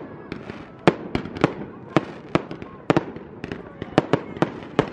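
Fireworks display: an irregular rapid series of sharp bangs from aerial shells bursting, about a dozen in under five seconds.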